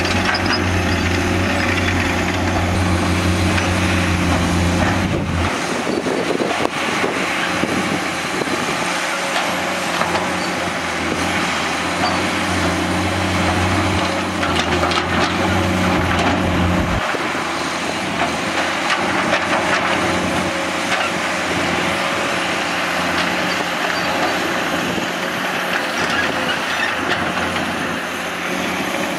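Komatsu PC210 hydraulic excavator running as it digs and swings, a steady low diesel drone under a rough spread of mechanical noise. The low drone drops back about five seconds in, picks up again, and eases off once more around seventeen seconds.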